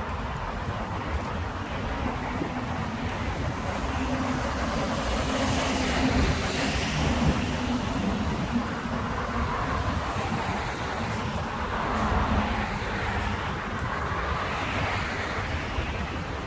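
City street traffic passing on the adjacent road, a steady rush of tyres and engines that swells around the middle, mixed with wind on the microphone.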